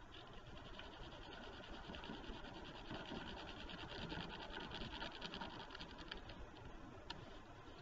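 Colour pencil stick rubbed quickly back and forth over paper laid on a ridged plastic texture plate: a faint, scratchy rasp of rapid strokes, strongest through the middle.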